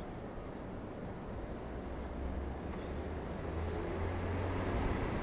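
JR East E131 series electric train approaching slowly, its running noise growing steadily louder, with a low hum coming in about two seconds in.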